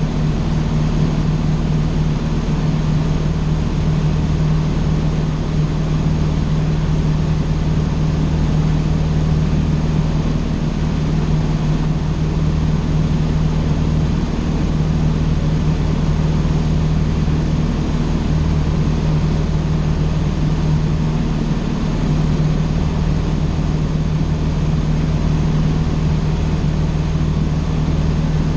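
Cessna 150's four-cylinder Continental O-200 engine and propeller running at a steady drone, with no change in pitch or power.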